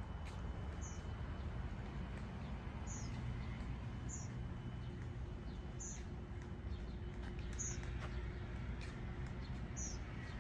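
A bird giving short, high chirps every second or two, over a steady low rumble.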